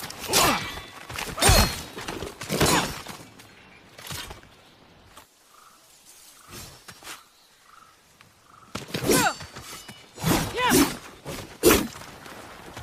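Sword-combat sound effects for an odachi (long katana): sharp steel blade clashes, each a hit with a short metallic ring. Four come in the first few seconds, then a quieter pause, then three more near the end.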